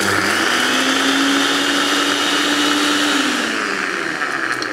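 Electric mixer grinder running with a small jar of dry-roasted whole spices (cumin, fennel, nutmeg, dry red chillies), grinding them to a fine powder. The motor starts suddenly, its whine rises briefly as it comes up to speed, holds steady, then sinks a little near the end as it slows.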